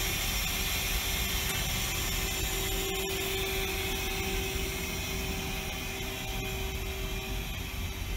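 Steady hum and hiss of a powered-up Mazak Quick Turn Nexus 350 CNC lathe, with one constant tone held throughout.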